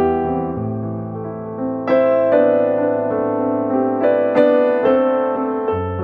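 Background piano music: slow, gentle notes and chords, with fresh notes struck about every half second to second.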